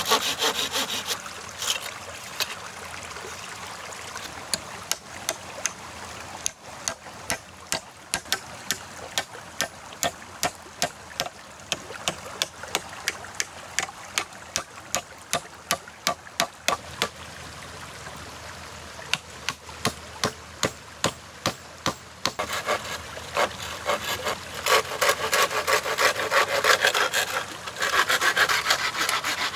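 A hand saw cutting wood in rasping strokes near the start and again near the end. In between comes a long run of sharp, irregular knocks on wood.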